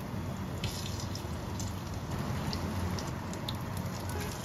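Egg-battered radish slices shallow-frying in oil: a steady sizzle with a few scattered pops and crackles, over a low steady hum.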